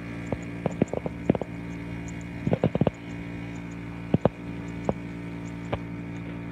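Steady low drone of a distant Sokol helicopter, with irregular sharp clicks scattered through it, most of them in a cluster about midway.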